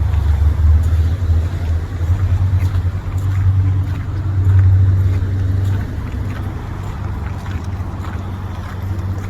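Low rumble of car traffic on a city street, swelling as a vehicle passes about four to five seconds in, with faint footsteps crunching in snow.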